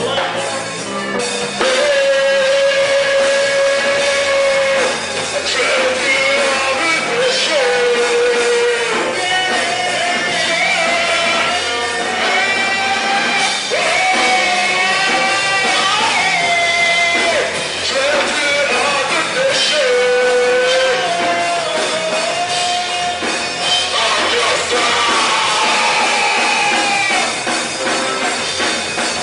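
Rock band playing a song, with a loud sung melody of long held, wavering notes over the band.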